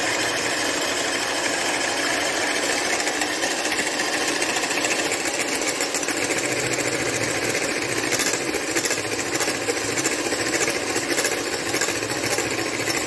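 Electric hand mixer running steadily at one speed, its beaters whipping egg whites in a glass bowl to a fluffy froth.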